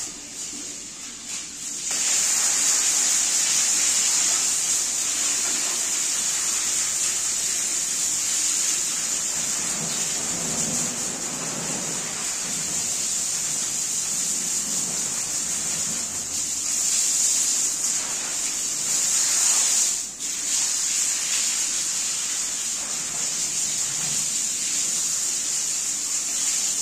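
Pressure washer spraying water onto a rug: a loud, steady hiss that starts about two seconds in and breaks off briefly about three quarters of the way through.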